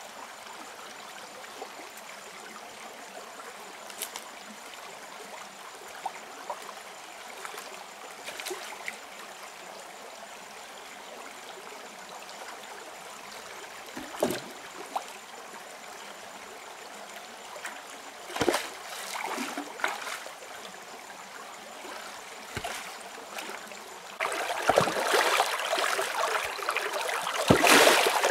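Shallow rocky stream flowing steadily, with a few splashes and knocks as stones are lifted and moved in the water. About three-quarters of the way through, the rushing water becomes suddenly much louder, close to water running over rocks.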